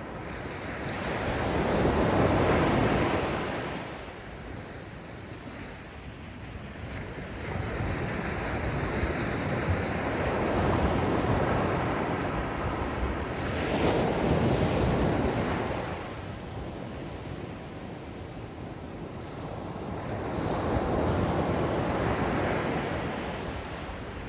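Ocean waves breaking and washing up on a sandy beach, coming in slow surges every several seconds, each one swelling to a rush and then fading.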